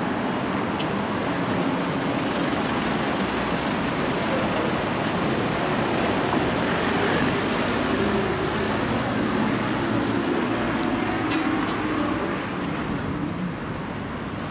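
Street traffic: cars driving along the road, a steady wash of engine hum and tyre noise that eases a little near the end.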